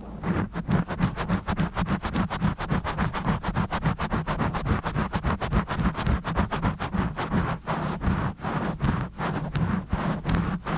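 Rough scratching directly on an uncovered microphone, fast repeated strokes several times a second, with a heavy low rumble from the mic being rubbed.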